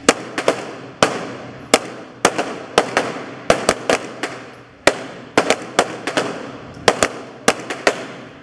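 Handgun fire from several shooters on a line: about two dozen irregular, overlapping shots, two to three a second, each ringing out in the reverberation of an indoor range.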